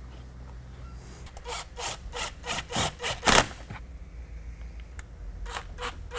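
Rubbing, rasping strokes from a silicone turbo intake hose being worked onto its fittings and clamped: a run of short strokes at about four a second from about a second and a half in, and a few more near the end.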